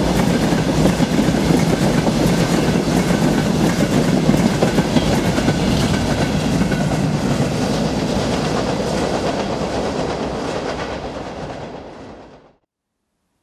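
Freight train of open wagons and tank wagons rolling past close by, wheels clattering over the rail joints. The sound fades over the last couple of seconds and cuts off suddenly near the end.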